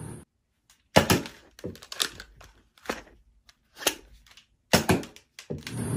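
Nerf foam-dart blasters being fired and worked in a small room: a string of short, sharp plastic clacks and pops, the loudest about a second in and near the end.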